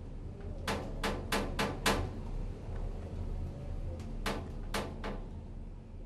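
Sharp knocks or strikes: five in quick succession, then after a pause three more, each ringing briefly, over a steady low hum.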